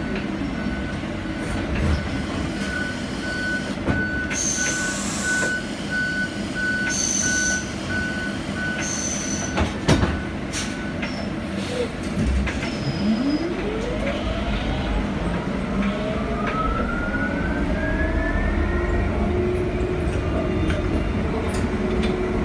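Interior of a Proterra Catalyst BE35 battery-electric bus: the whine of its UQM permanent-magnet drive motor falls in pitch as the bus slows to a stop. While it stands, a string of short electronic beeps sounds with a few short hisses of air, then about halfway through the motor whine rises steeply in pitch as the bus pulls away and speeds up.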